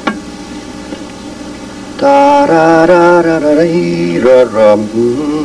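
A man sings a wordless tune in a few held notes, starting about two seconds in after a quieter start.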